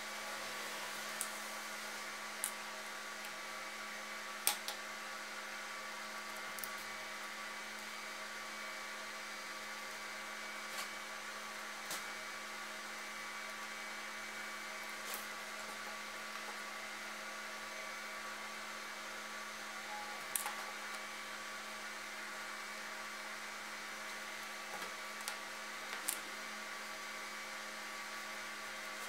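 Steady electrical hum and hiss, with about a dozen light, irregular clicks and ticks from hand saddle-stitching a leather strap with two needles and thread.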